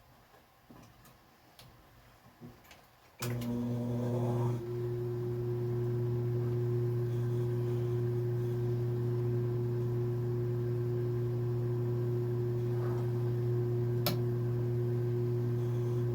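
Electric sewing machine motor switched on about three seconds in, then humming steadily at an even pitch; a few light handling clicks before it and one sharp click near the end.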